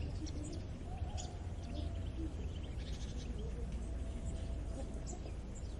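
Rural morning ambience: small birds chirping and twittering repeatedly, with faint drawn-out animal calls lower in pitch, over a steady low rumble.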